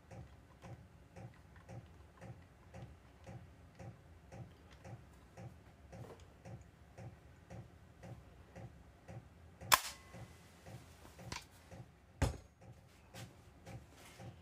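Faint, even ticking about two and a half times a second, with two sharp clicks about ten and twelve seconds in, while a 3/4-inch straight bit with a 1/2-inch shank is being fitted into the plunge router's collet.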